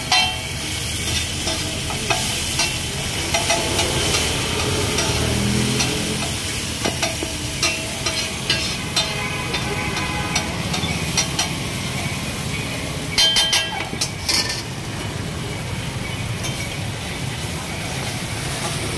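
Egg, tomato and onion frying with a steady sizzle on a large flat iron tawa, while a metal spatula and then a masher scrape and click against the pan, the clicks coming thickest about two-thirds of the way through.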